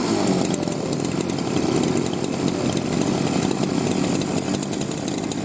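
Gasoline impact wrench running under load: its small engine's pitch sinks right at the start, then a loud, fast rattling hammer goes on steadily.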